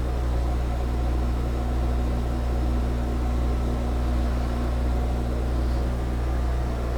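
Metal lathe running steadily with no cut being taken, an even motor and spindle hum.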